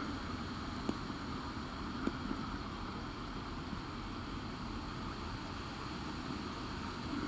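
Steady underwater pool noise heard through a submerged camera, with two faint clicks about one and two seconds in.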